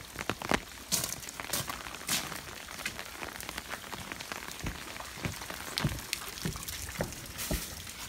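Footsteps crunching on wet gravel, then thudding steadily up wooden steps and across wooden boards, about two footfalls a second.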